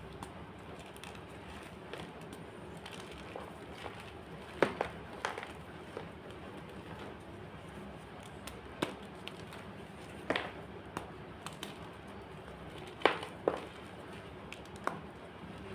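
Blocks of white gym chalk crunching, with sharp, dry cracks coming irregularly, about seven in all, over a steady low hum.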